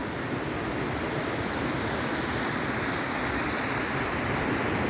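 Sea surf breaking and washing over a sandy beach: a steady rushing noise.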